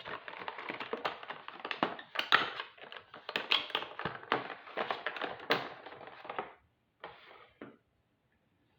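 A cardboard toy box and its plastic packaging being opened and handled: dense crackling and rustling with many sharp taps and clicks for about six and a half seconds, then two brief rustles.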